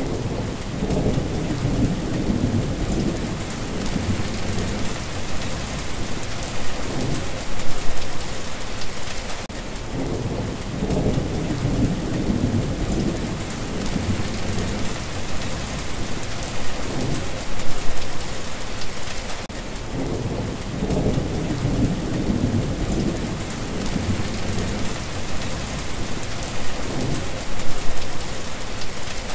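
Steady heavy rain hissing, with thunder rumbling low underneath in long swells that come back about every ten seconds, each growing loudest near its end.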